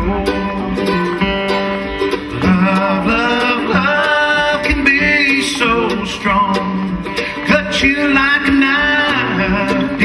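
Live country-bluegrass band playing: acoustic guitars strumming and a mandolin picking, with singing over them.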